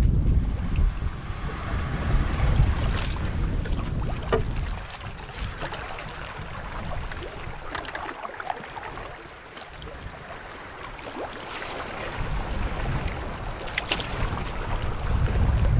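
Wind buffeting the microphone over open water, strong at first, easing off in the middle and gusting up again near the end. Between the gusts come light splashes and knocks from canoe paddle strokes and water against the hull.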